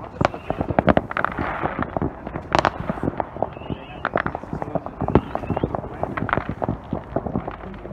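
Distant fireworks and firecrackers going off from many places at once: a dense, uneven run of sharp bangs and pops, several a second.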